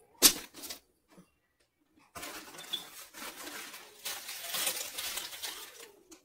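Broken pieces of baked clay being handled: one sharp clink about a quarter second in and a few lighter clicks, then about four seconds of steady rustling and scraping as the pieces and their packaging are sorted.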